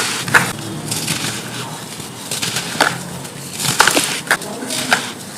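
Clumps of dried pure sand crumbling and crunching: a steady gritty hiss of falling grains broken by about five sharp cracks as lumps snap apart.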